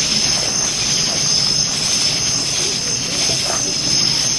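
A steady, high-pitched chorus of night insects chirring without a break, with a low murmur of people talking beneath it.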